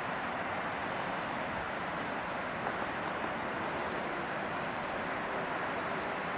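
Steady, even rushing outdoor noise with no distinct events, and a few faint high chirps above it.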